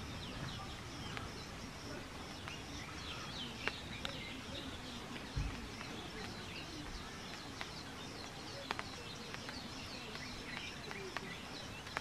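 Faint chirping and twittering of small birds, many short calls throughout, with a few sharp ticks scattered through and a single soft low thump about five seconds in.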